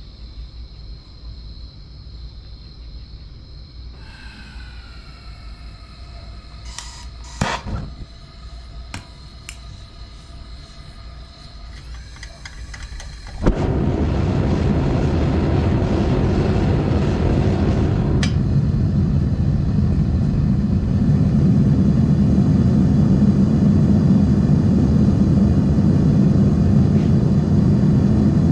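A burner on a metal-melting furnace lit about thirteen seconds in with a sharp pop, then running as a loud, steady roar. Before that, a quieter background with a few sharp clicks.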